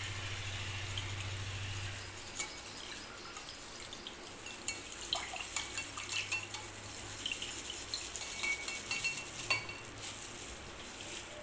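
Wire whisk beating milk and egg in a glass bowl: irregular clinks and ticks of the wires against the glass, some with a short ring. A low hum sits under the first couple of seconds.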